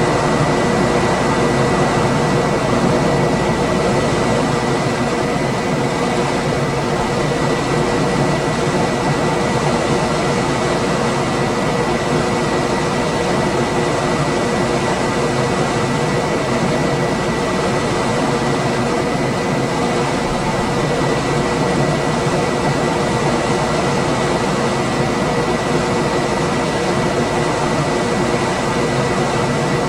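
Room air conditioner running steadily: an even rush of fan and airflow with a faint constant whine on top.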